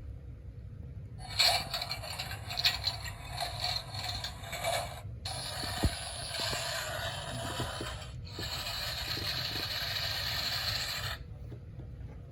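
Cement mixer sound effect played from a children's sound book's small speaker: a mechanical churning noise in three stretches of about three seconds each, starting about a second in.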